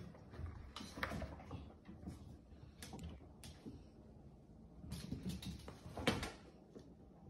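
Scattered light knocks and scuffles of a kitten playing on a cardboard scratcher and scampering across the floor, with a small cluster of knocks about five to six seconds in.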